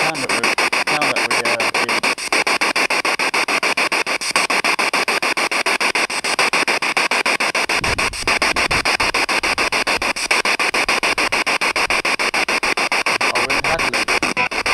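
Radio static from a spirit box sweeping through stations, a steady hiss chopped into rapid, even pulses many times a second. A brief low rumble comes about eight seconds in.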